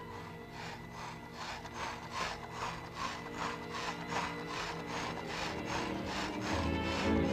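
Rhythmic scraping strokes, about three a second, the sound effect of a small cleaning robot sweeping up ash. A low steady drone runs underneath, and music swells in near the end.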